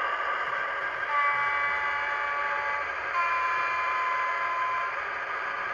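Sound-fitted model Class 56 diesel locomotive playing its recorded horn through its small speaker: two held notes about two seconds each, the second a little higher, over the steady idling engine sound.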